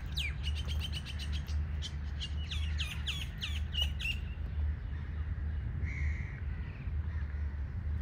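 Birds chirping: a quick run of short, sharply falling notes through the first half, then a fainter call about six seconds in, over a steady low rumble.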